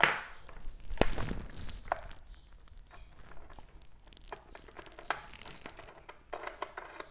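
Clicks and light knocks of multimeter test probes and leads being handled and pushed into the holes of the power supply's output connectors. A sharp click at the start and another about a second in, then scattered fainter clicks.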